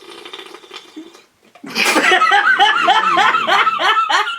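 A short wet, gurgling snore attempted through a mouthful of fizzy drink, then, after a brief pause, a man's loud, rhythmic laughter from a little under halfway in.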